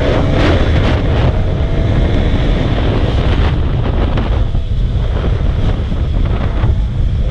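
Heavy, steady wind buffeting on a motorcycle rider's microphone while riding, the microphone wrapped against rain; the motorcycle's engine is only faintly heard beneath it.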